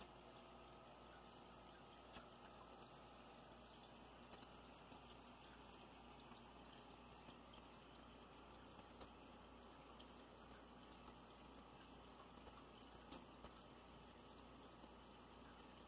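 Near silence: a faint steady hiss of aquarium water with a low hum and scattered small ticks.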